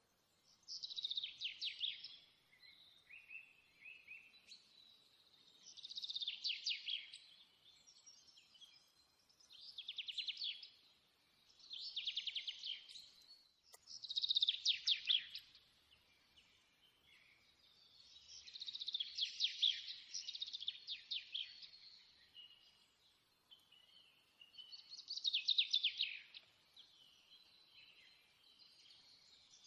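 A songbird singing short, rapid trilled phrases, each about a second long, repeated every few seconds.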